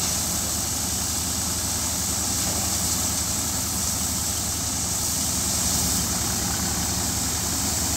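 Tractor-powered wheat thresher running steadily while wheat stalks are fed into it: a constant low engine drone with a steady rushing hiss over it.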